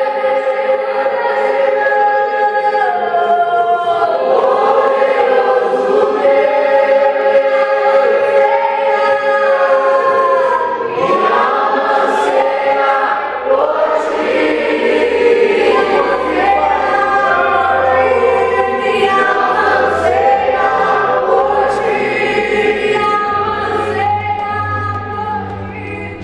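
Worship song with a choir singing long held notes over the band. A low bass line comes in about halfway through.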